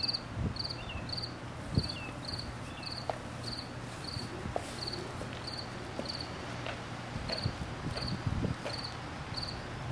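A cricket chirping steadily, about two short chirps a second, with a few soft low thumps underneath.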